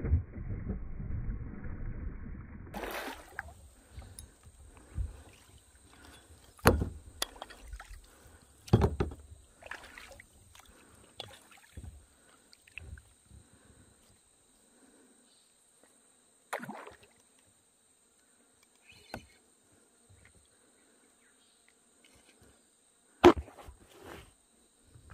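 A hooked fish splashing at the surface for about the first three seconds, then scattered sharp knocks and bumps of paddle and gear against a kayak, the loudest one near the end.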